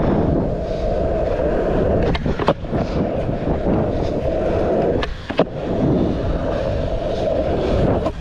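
Skateboard wheels rolling steadily on pavement, with sharp clacks of the board: one pair about two seconds in, and another about five seconds in with a short break in the rolling noise between the pop and the landing.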